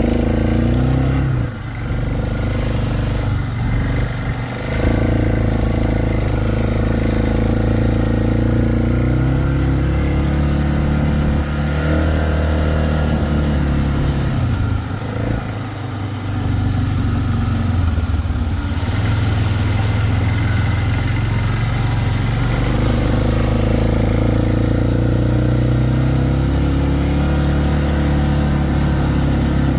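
Four-wheeler (ATV) engine running while riding, its pitch falling and rising again several times as the throttle eases off and opens up, with brief drops in level around two seconds in and again near the middle.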